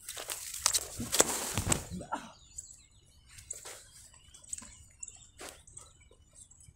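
About two seconds of rustling noise, then faint scattered clicks, with small birds chirping.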